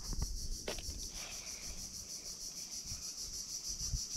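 A steady, high-pitched drone of insects with a fast, even pulse, over a low rumble, with a couple of light clicks about half a second in.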